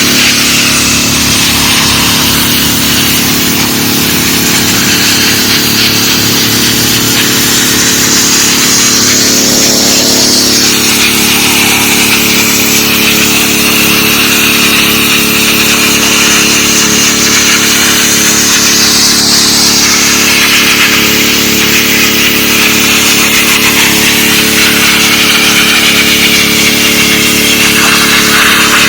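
DeWalt 3600 psi gas pressure washer engine running steadily under load, with the hiss of the high-pressure water jet on concrete swelling and fading as the spray moves.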